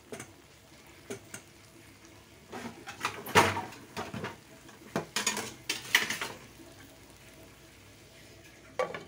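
Cookware clinking and clattering in short bursts, loudest about three and a half seconds in, with a last knock near the end as a glass lid is set onto the pan.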